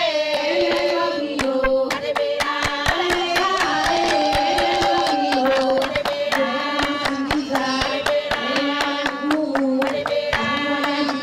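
A group of women singing a song together, with sharp hand claps through it.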